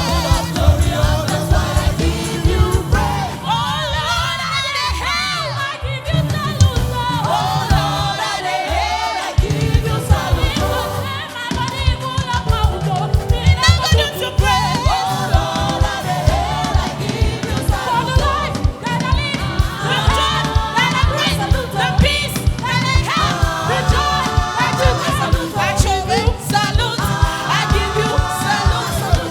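Gospel choir singing with band accompaniment, a steady drum and bass beat underneath the voices.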